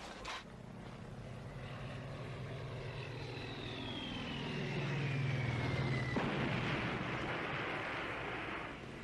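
Film sound effects of an air attack: a warplane's engine drones and grows louder, and a bomb's whistle falls steadily in pitch for about three seconds. An explosion about six seconds in lasts a couple of seconds.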